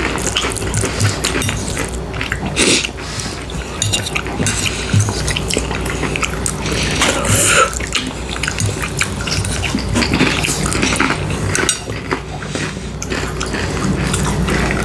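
Close-miked eating sounds: wet chewing and smacking with many short mouth clicks, and now and then a clink of cutlery or dishes.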